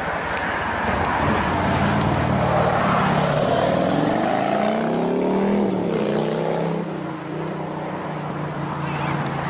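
A car engine running. Its pitch rises and then falls in the middle, and it settles to a steady lower note.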